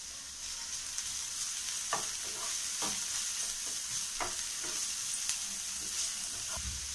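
Diced vegetables sizzling in oil in a nonstick frying pan as a wooden spatula stirs them. The spatula scrapes and taps across the pan every second or so from about two seconds in.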